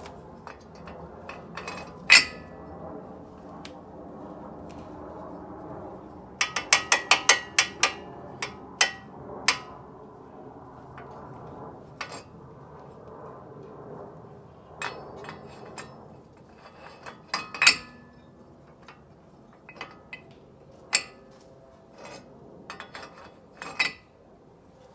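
20 mm hub spacer being worked onto a car's front wheel-hub studs against the brake rotor, giving scattered sharp metallic clinks and knocks. There is a quick run of clinks about six to eight seconds in, and single louder knocks about two seconds in and again past the middle.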